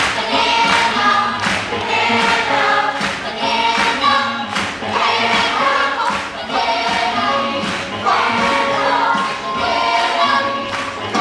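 A chorus of voices singing a musical-theatre number together over a backing track with a steady beat.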